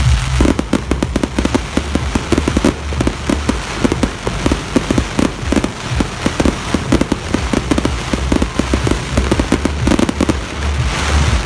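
Fireworks going off in a dense, continuous crackle of many rapid pops.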